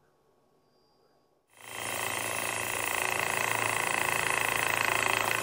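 Small lapidary trim saw cutting through a piece of picture jasper: a steady, high-pitched grinding over the motor's low hum. It starts abruptly about a second and a half in.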